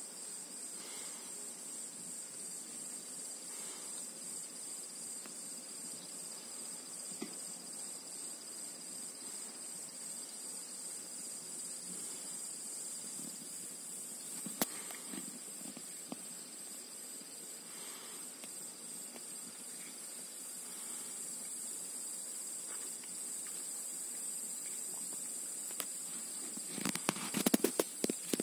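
Steady high-pitched insect chirring, two unbroken thin tones held throughout. Near the end a burst of crackling rustles and clicks comes in over it.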